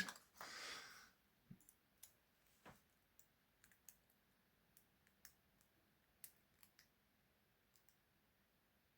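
Faint, irregular small clicks of a lock pick and tension tool working the pins of a padlock held in hand.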